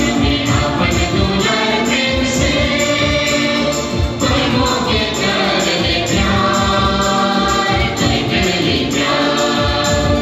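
A choir singing a hymn with instrumental accompaniment and a steady beat, played over a loudspeaker system.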